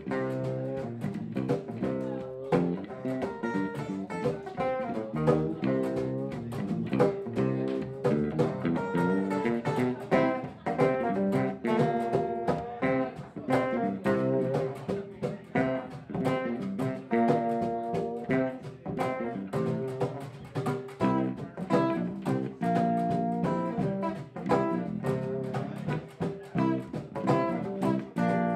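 A band playing live with no singing. An electric bass is plucked along with guitar in a busy run of notes.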